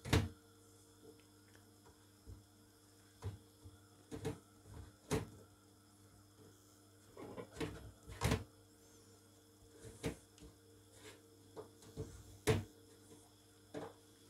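Irregular light clicks and taps of almonds and fingers against a stainless steel mesh strainer while hot blanched almonds are being peeled, over a faint steady hum.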